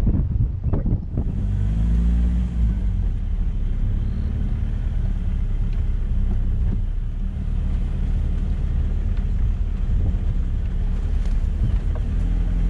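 Open Land Rover Defender game-drive vehicle's engine pulling away, rising in pitch about a second in, then running steadily as the vehicle drives on.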